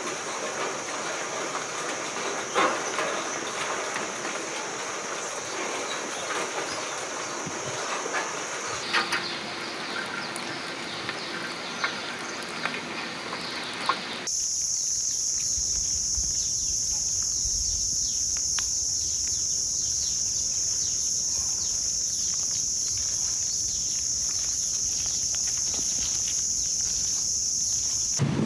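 Christmas Island red crabs scuttling over gravel and dry leaf litter, a scatter of small clicks and rustles, over a steady high-pitched drone of forest insects. About fourteen seconds in, the sound cuts to a louder insect drone with a second, higher band over a low wind rumble.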